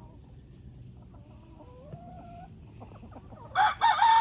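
Hens clucking softly, then a rooster crowing loudly near the end: a few short broken notes and then one long held note.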